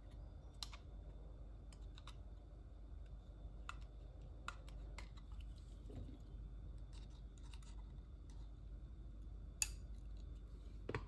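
Scattered small clicks and taps from a plastic adhesive tape runner and tweezers being handled over a paper planner, with the sharpest click a little before the end.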